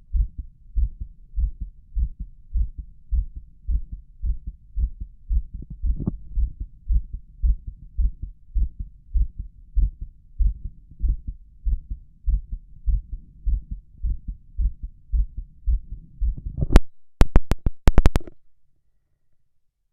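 A man's heartbeat heard through a stethoscope on his chest, beating loudly and rapidly in an even rhythm of low thumps. Near the end, the beats give way to a burst of sharp clicks and knocks.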